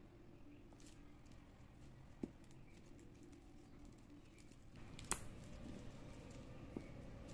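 Faint rustling and light clicking of plastic craft wire strands as they are handled and pulled into a knot, with a sharper click about two seconds in and the loudest click about five seconds in.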